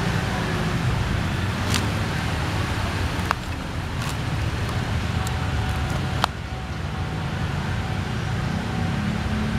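Steady rumble of road traffic, with a few sharp clicks.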